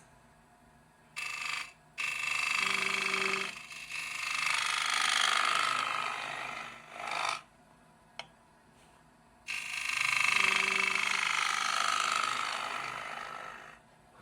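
Turning tool cutting into a spinning wooden bowl on a wood lathe: a rasping hiss of wood being shaved, in four passes of one to four seconds with short quiet gaps between them.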